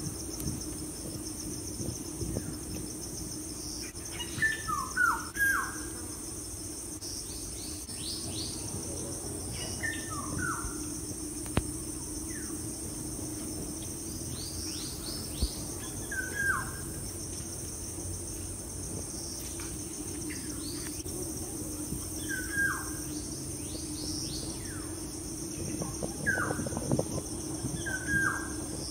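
A bird calling every few seconds in short notes that slide downward, some in quick pairs or clusters, over a steady high-pitched insect chorus.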